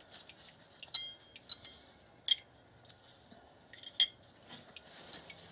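Sharp metallic clinks of small steel bolts and hand tools knocking together, about five separate clinks, each with a short high ring. The loudest come about two and four seconds in.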